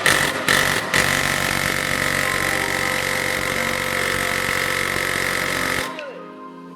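A power tool running steadily at full speed for about five seconds after a few sharp clicks, then cutting off suddenly.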